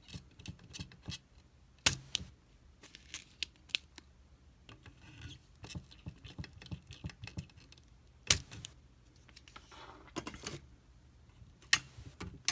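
Scattered small clicks, taps and scratches from working a pump-action desoldering iron on a circuit board, with three sharp louder clicks about two, eight and eleven and a half seconds in.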